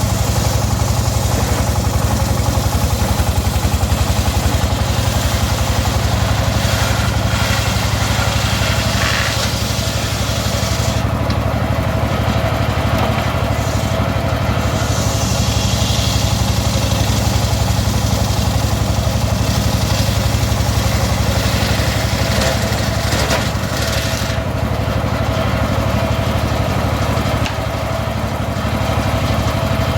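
Engine-driven homemade circular saw running steadily while sawing teak logs, with a low engine hum under a steady hiss. The hiss drops away briefly about eleven seconds in and again near the end.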